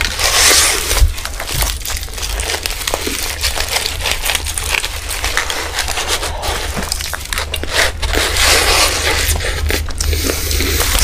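Aluminium foil wrapping on a large shawarma roll crinkling as it is gripped and peeled back, mixed with close-miked chewing of big mouthfuls; a dense run of crackles and clicks with no pauses.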